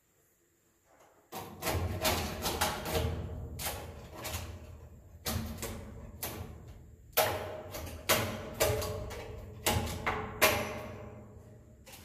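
Repeated sharp knocks and scrapes of a long pole-mounted nest scraper against the wooden ceiling planks of a swiftlet house, as swiftlet nests are pried off. The first second is nearly silent; after that the knocks come irregularly, each ringing on in the bare room.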